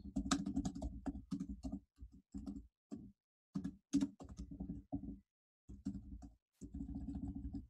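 Computer keyboard typing: uneven runs of keystrokes with brief pauses between them.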